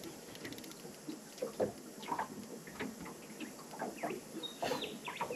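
Faint scattered small clicks and short chirps, with one brief rising chirp near the end.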